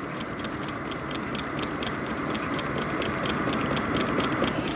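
Water-cooled Stirling hot-air engine running quietly, its mechanism making a rapid, even ticking over the steady hiss of its gas burner.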